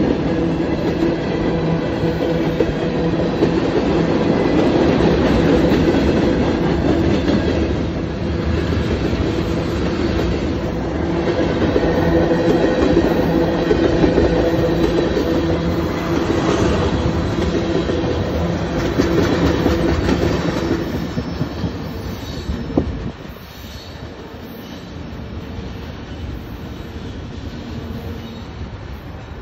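Union Pacific manifest freight train's tank cars rolling past close by, a loud steady rumble of wheels on the rails. About 21 seconds in the sound falls away to a quieter, more distant rumble as the end of the train pulls away.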